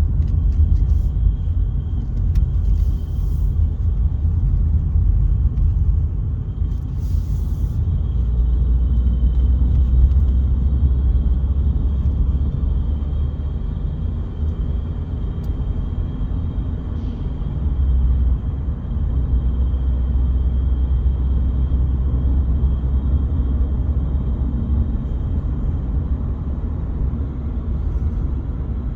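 Engine and road rumble inside the cabin of a 2014 Mercedes-Benz W205 C-Class under acceleration, with a thin, continuous high-pitched ringing above it. The ringing is the high-pressure fuel pump's noise carried into the cabin through the steering shaft and its boot in the driver's footwell.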